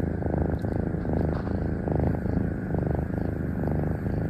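Tabby kittens purring, a steady rumble that comes in alternating stretches with each breath in and out.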